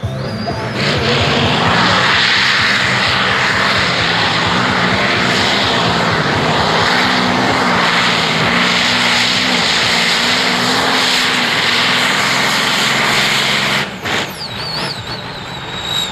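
Competition pulling tractor of about 6500 horsepower under full throttle during a pull, its engine note stepping up and down in pitch. It cuts off abruptly about 14 seconds in.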